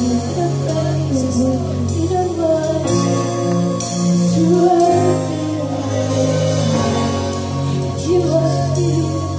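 Live worship band playing a slow song: long held keyboard and bass chords, with a woman singing the melody over them.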